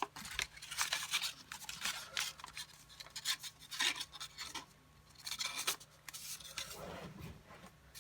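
A sheet of paper being folded and creased by hand, with an irregular run of brief crinkling rustles and rubs as the folds are pressed flat.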